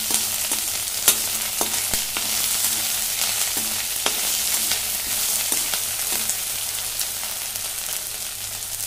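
Chopped onions sizzling in hot mustard oil in a metal kadai, stirred with a perforated metal spatula that scrapes and clicks against the pan at irregular moments.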